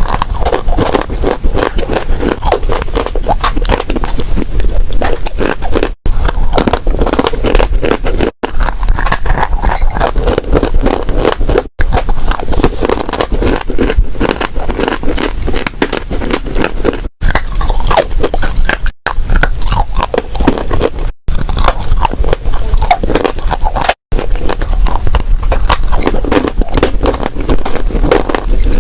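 Dry clay crunching and crumbling in close-up: a dense run of crisp cracks and scrapes, broken by several sudden cuts where one short clip gives way to the next.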